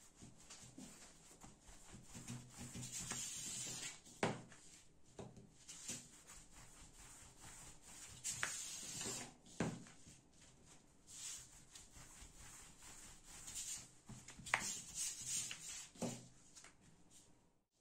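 Yufka dough wrapped around a long thin wooden rolling pin (oklava) being rolled back and forth under the palms on a floured table: repeated soft rubbing swishes, with a few sharp knocks of wood.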